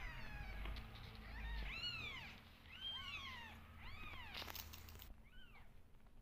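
Newborn kittens mewing: short, thin, high-pitched mews that rise and fall in pitch, about one a second, the last one fainter.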